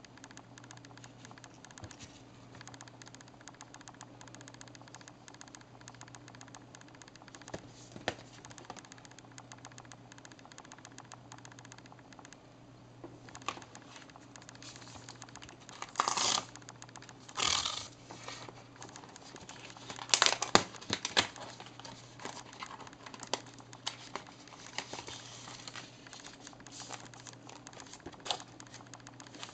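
Cardboard screen-protector package and its plastic film being handled and opened: light tapping and rustling, with a few louder crinkling bursts past the middle, over a steady low hum.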